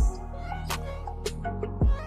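Background music: a beat with deep bass-drum hits that drop in pitch, over a sustained bass line and light hi-hat ticks.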